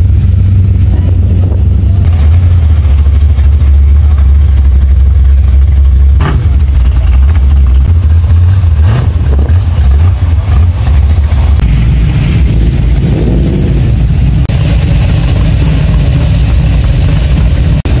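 V8 engines of classic muscle cars idling and creeping past at low speed, a deep steady rumble, with two short sharp sounds about six and nine seconds in.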